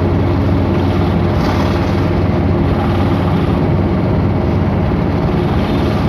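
Steady engine drone and road noise heard from inside a moving vehicle, low and even throughout.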